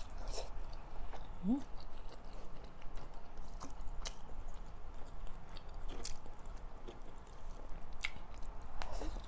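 Close-miked chewing and wet lip-smacking of a person eating pinakbet with pork and rice by hand, with sharp mouth clicks every second or two.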